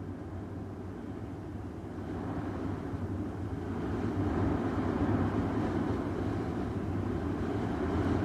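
A steady low mechanical rumble with a hum, growing louder about two seconds in.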